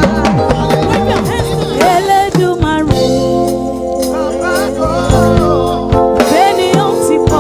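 Gospel praise music: a singing voice over sustained held chords, with a drum beat.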